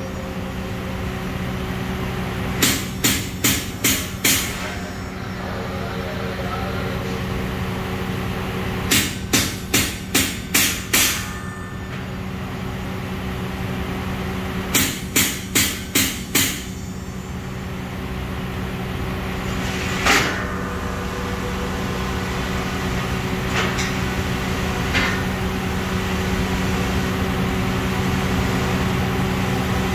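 A steel hammer striking the plate of a large circular saw blade in three quick runs of five or six blows each, then a few single blows: the saw doctor's hammering that levels and tensions a saw blade. A steady machine hum runs underneath.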